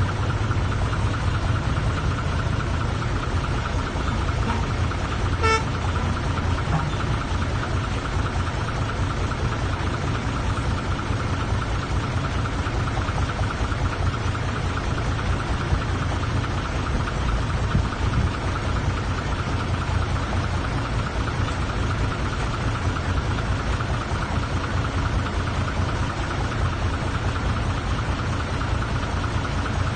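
Bulldozer's diesel engine running steadily with a steady high whine over the low rumble, and a single short click about five and a half seconds in.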